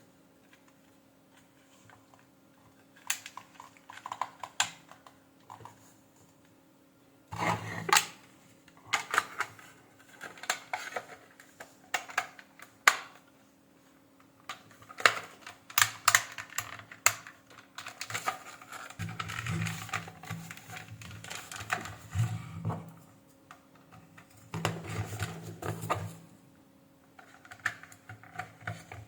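Plastic hair-dryer housing and small tools handled during reassembly: irregular clicks, taps and rattles in clusters, with pauses between.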